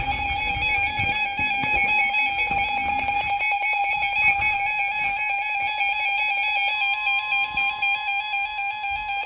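Emergency Alert System attention signal: a loud, steady two-tone alarm held for about nine seconds, marking the start of a severe weather warning. It cuts off suddenly at the end.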